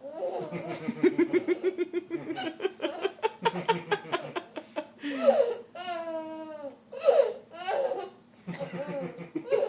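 A toddler laughing in quick rhythmic peals of giggles, with a longer drawn-out laugh that wavers up and down in pitch about six seconds in.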